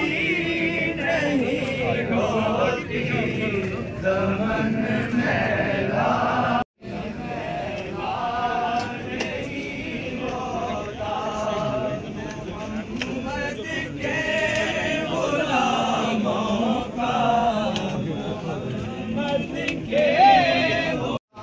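A large crowd of men's voices chanting together. The sound drops out briefly about a third of the way in.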